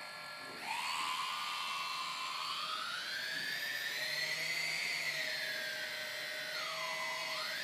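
Four brushless motors of an S500 quadcopter, no propellers fitted, starting up and spinning at idle just after the APM 2.8 flight controller arms. They give a whine that starts just under a second in, rises slowly, sinks again, dips briefly near the end and climbs back.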